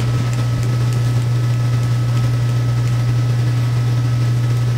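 A steady, unchanging low hum with faint higher whining tones above it, like building ventilation or electrical hum.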